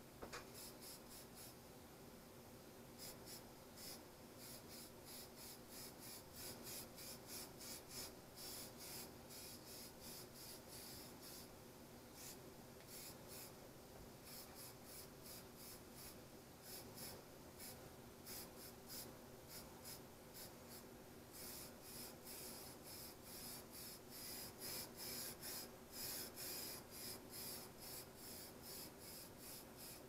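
Aerosol spray-paint can hissing in many short, faint bursts with brief gaps between them, over a steady low hum.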